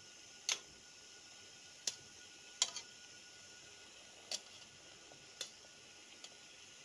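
Six or seven sharp, irregular clicks over a faint steady hiss.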